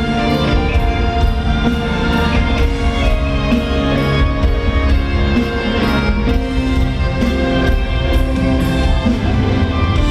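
A live band playing pop music over an arena's sound system, recorded from the audience.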